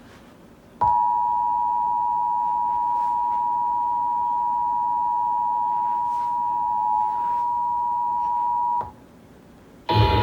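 Emergency Alert System two-tone attention signal: a steady dual tone at 853 and 960 Hz. It switches on about a second in, holds for about eight seconds and cuts off abruptly. It announces the National Periodic Test. A louder, noisier sound cuts in right at the end.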